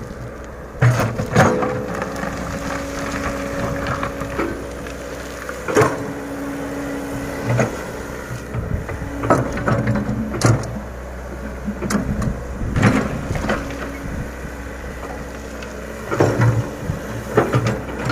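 Komatsu PC100 excavator at work: its engine running with a steady low drone and a whine that comes and goes, and sharp clanks and knocks from the bucket every second or two as it levels sand.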